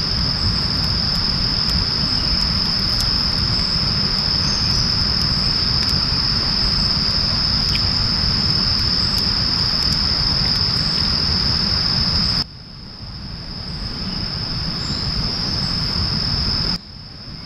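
Insects chirring in a steady high-pitched trill over steady rain and a deep low rumble. The whole sound cuts down abruptly about twelve seconds in and again near the end, each time swelling back up over a second or two.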